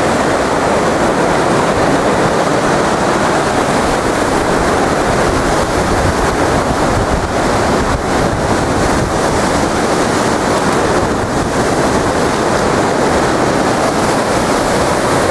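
Storm-force wind rushing through trees in a steady, loud roar with slight surges, buffeting the microphone.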